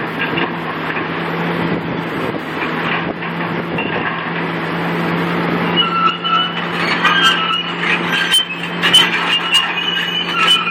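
Demolition excavator's diesel engine running steadily. From about six seconds in, high metal squeals and sharp clanks join it as steel is worked on the structure.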